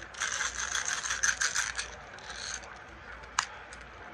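BB gun mechanism being worked by hand: a rapid run of ratcheting clicks and rattles for about two and a half seconds, then a single sharp click.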